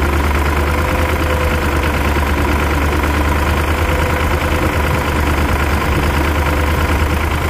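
Tractor engine running steadily, heard from the driver's seat, with a strong low hum.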